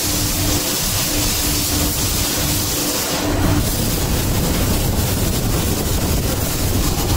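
Leather-processing machinery running with a loud, steady mechanical noise. A steady hum drops out about three and a half seconds in, and the noise then carries on.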